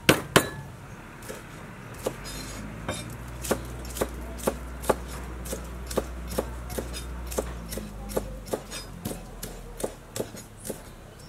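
A cleaver chopping green onions on a wooden cutting board: sharp knocks of the blade on the board at about two to three a second, the loudest ones at the very start.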